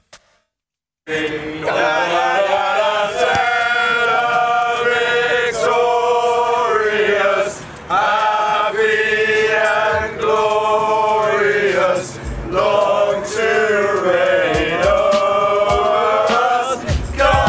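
A group of men's voices singing together in slow, long-held phrases, anthem-style. It begins about a second in.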